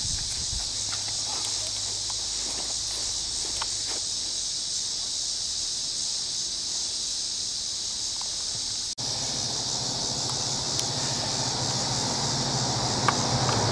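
Steady high-pitched insect drone. Over the last few seconds a vehicle's low rumble grows louder.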